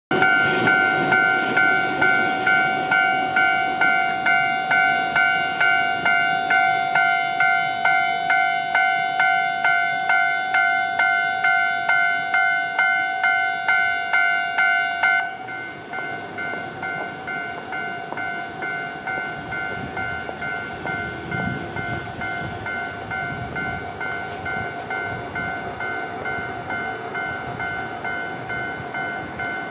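Japanese railway level-crossing alarm ringing its electronic "kan-kan" tone, a steady beat of about two strikes a second. About halfway through it suddenly drops to a quieter level and keeps ringing.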